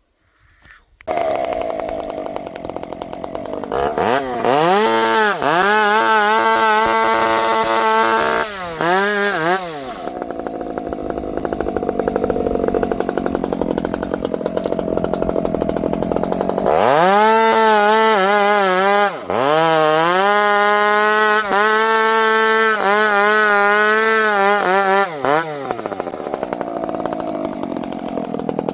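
Dolmar chainsaw running, revved to full throttle and cutting twice, the engine pitch sagging and bending as the chain bites. Between the two cuts and near the end it drops back to a lower, rougher idle.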